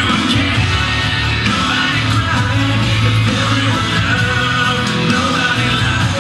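Loud music with singing, in a rock-and-roll style.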